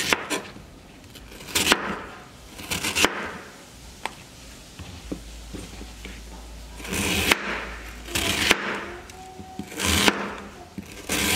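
Kitchen knife cutting through pieces of banana stem and striking a plastic cutting board: about half a dozen separate cuts a second or more apart, some drawn out as longer slicing strokes.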